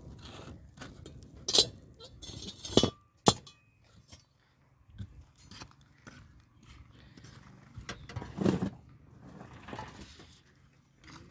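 Metal clinks and clanks of the iron lids over a coal-fired brick kiln's feed holes being handled, with a few sharp strikes in the first few seconds and a longer clatter about eight seconds in.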